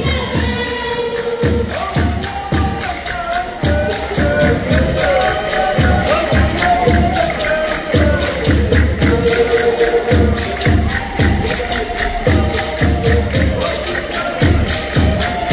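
Live Portuguese folk-dance music played by the group's musicians: a melody over a steady, quick percussion beat.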